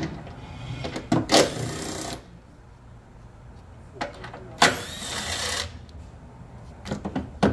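Handheld power tool run in two bursts of about a second each, driving out the bolts holding the windshield wiper linkage, with a few sharp clicks near the end.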